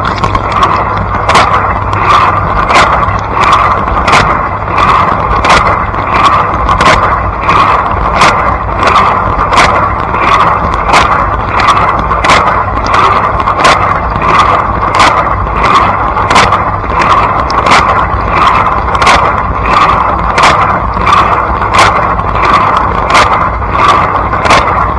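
Blanco dishwasher running its wash cycle, water spraying inside the tub over a steady low hum. Sharp splashing hits repeat evenly, nearly twice a second, as the spinning spray arms sweep their jets around.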